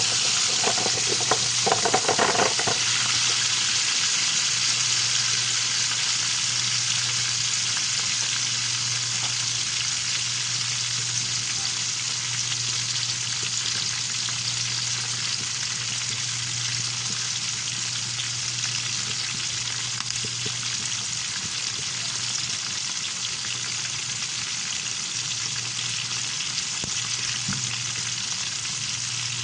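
Milkfish (bangus) frying in hot oil: a dense, steady sizzle that gradually gets quieter, with a few knocks in the first couple of seconds. A steady low hum runs underneath.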